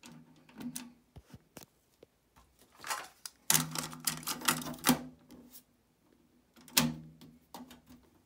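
Plastic clicks and clatter of a Sherwood DD-1010C cassette deck being worked by hand. The eject button clicks at the start. A cassette rattles against the door as it is loaded, in a dense run of clicks about halfway through, and one sharp click follows shortly after as the door is shut.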